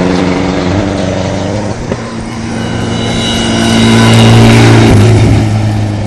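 Mitsubishi Lancer Evolution rally car's turbocharged four-cylinder engine driving past at speed on gravel, with a hiss of tyres and gravel under it. The engine grows louder to its peak about four seconds in, and its note shifts abruptly about a second later.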